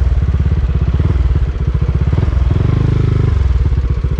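Honda ADV350 scooter's single-cylinder engine running at low speed with an even pulsing beat. It swells briefly as the throttle is opened about two and a half seconds in, then settles back.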